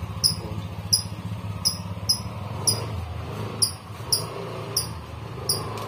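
High-pitched chirping: a short call that falls slightly in pitch, repeated about twice a second, over a steady low hum.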